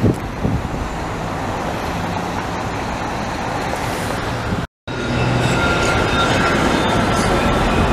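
Steady street traffic noise with a commuter train rolling along the embankment. After a short break in the sound a little past halfway, an Exo commuter train of bi-level cars passes closer, louder, with a thin high steady whine over its rolling noise.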